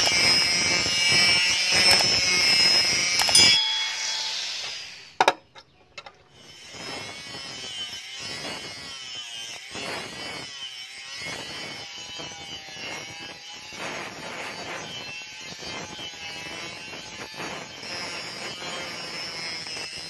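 Electric angle grinder with an abrasive disc grinding a steel knife blade. A loud steady whine for the first few seconds dies away, with a sharp click about five seconds in. The grinding then resumes more quietly in repeated strokes as the disc is swept along the blade.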